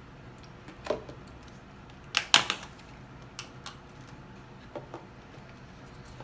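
A few scattered light clicks and knocks from ingredient containers being handled, picked up and set down. The loudest is a quick pair about two seconds in.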